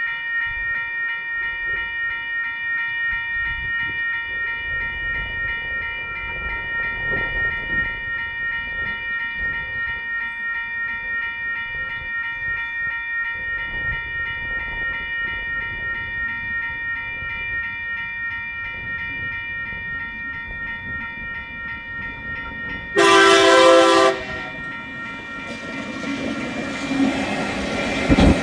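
Level crossing warning bells ringing with a steady, pulsing electronic tone. About 23 seconds in, a TasRail TR-class diesel locomotive sounds its horn in one loud blast of about a second. Near the end the locomotive's engine and wheels grow quickly louder as it reaches the crossing.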